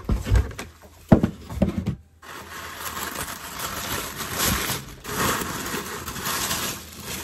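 A few handling knocks and thumps. Then, about two seconds in, a continuous rustling and crinkling of packaging starts, rising and falling as items in a package are rummaged through.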